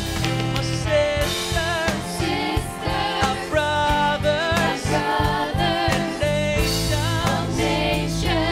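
A live worship band playing a contemporary Christian song, with a group of singers singing together over keyboards, guitars and drums.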